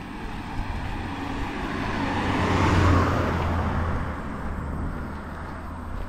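A car driving past on the road, its engine and tyre noise swelling to a peak about halfway through and then fading away.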